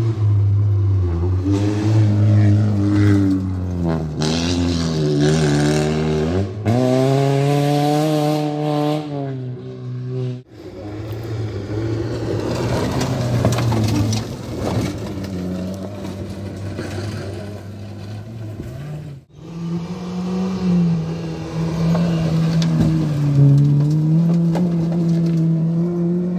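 Rally cars at speed on a gravel stage, engines revving up and falling back through gear changes, with loose gravel sprayed from the tyres. The sound breaks off abruptly twice as one car gives way to the next.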